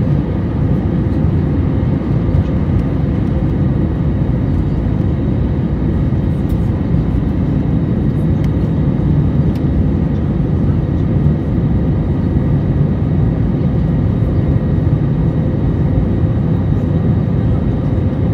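Jet airliner cabin noise in flight: a steady low rumble of engines and airflow, with a faint steady high whine above it.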